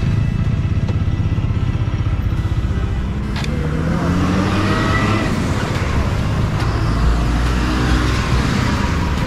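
TVS Apache RTR motorcycle's single-cylinder engine running at low revs, then rising in pitch as the bike speeds up about three and a half seconds in, with a hiss of wind and road noise over the helmet microphone.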